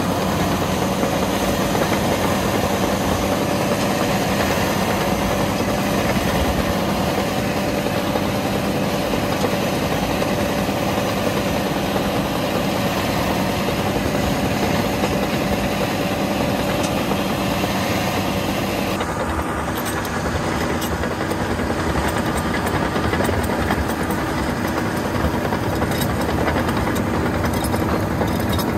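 FiatAllis FA 200 crawler tractor's diesel engine running steadily while the machine pulls a disc harrow, heard from on board. About two-thirds of the way through the sound turns duller.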